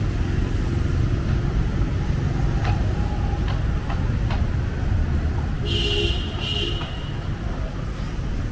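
Steady traffic on a wet city street: passing cars and motorbikes making a continuous low rumble. About six seconds in, a vehicle horn gives two short beeps.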